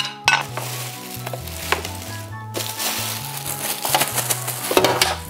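Clear plastic packaging bag crinkling and rustling as it is pulled off a waffle maker, over background music with a bass line.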